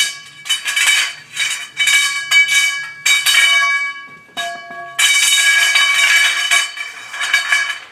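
16 mm steel grow-tent frame tubes clinking together and ringing as they are handled and pushed into their connectors: a string of sharp knocks, each followed by the same metallic ring, then a longer scraping ring from about five seconds in.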